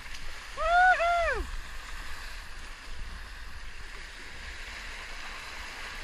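Sea water rushing and splashing along the hull of a canoe moving at speed, a steady hiss. A brief two-syllable shout about a second in.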